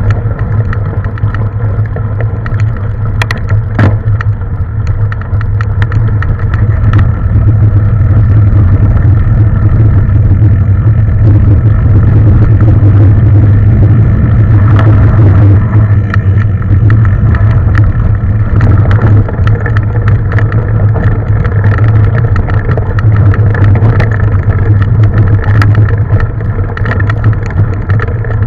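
Mountain bike being ridden along a trail: a loud, steady drone with scattered rattling clicks from the bike.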